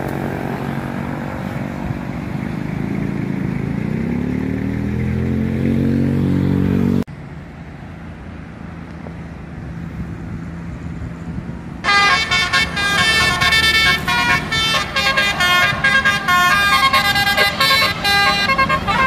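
A vehicle engine running and rising in pitch as it speeds up, cut off suddenly, then quieter traffic. About twelve seconds in, a tour bus's multi-tone 'telolet basuri' musical horn plays a fast tune of bright, quickly changing notes, the loudest sound here.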